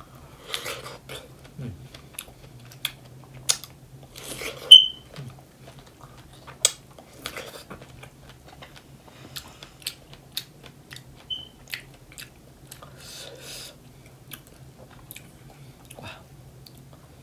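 A person biting into and chewing a large fresh strawberry close to the microphone: irregular mouth clicks and short chewing noises, the sharpest about five seconds in, over a faint steady hum.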